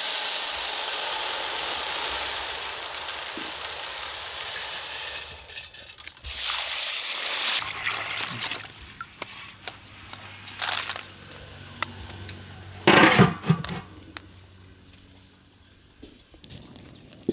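Sago pearls poured into a metal basin of water, making a dense, even hiss as the grains rain onto the water for the first five seconds. Water is then poured in over them in intermittent splashes, the loudest coming about thirteen seconds in.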